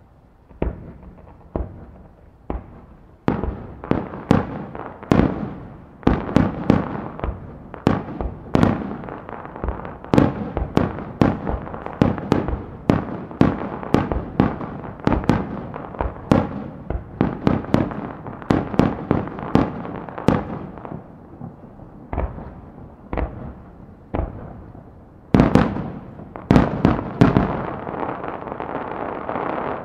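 Aerial firework shells bursting in quick succession, a long run of sharp, echoing bangs. The bangs thin out for a few seconds, then come in a close cluster near the end over a continuous crackle.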